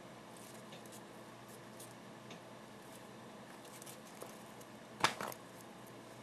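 Faint rustles and small ticks of light puffed snack pieces being handled in the palm, with one sharper, louder crackle about five seconds in.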